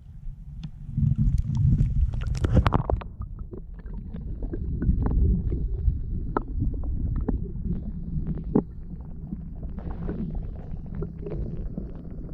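Muffled underwater sound picked up by a submerged camera: a low rumble of moving water with many small clicks and knocks. It is loudest from about one to three seconds in, as the camera goes into the water.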